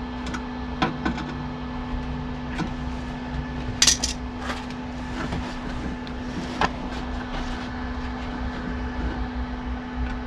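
Scattered light clicks and knocks, one sharper one about four seconds in, from steel bodywork being handled and lined up by hand, over a steady low electrical hum.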